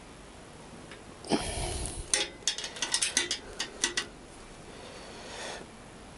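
A knock about a second in, then a run of sharp, irregular metal clicks for about two seconds, as a socket and a spanner are fitted and worked on a motorcycle subframe nut and bolt.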